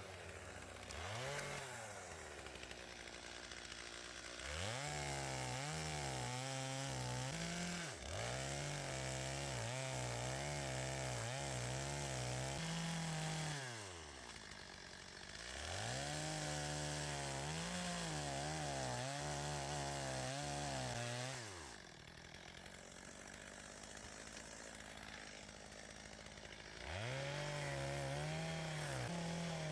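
Two-stroke chainsaw revved to full throttle in four long stretches of several seconds each, the engine pitch wavering slightly while held high, then falling back to idle between them: cutting dead trees for firewood.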